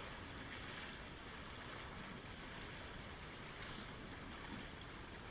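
Lake Ontario water washing in small waves, a steady rush with gentle swells.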